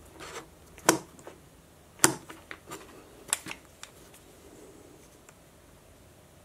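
Two pine blocks joined by a Soss invisible hinge being handled and swung open on the hinge: a handful of sharp clicks and light wooden knocks over the first four seconds, the loudest about a second apart.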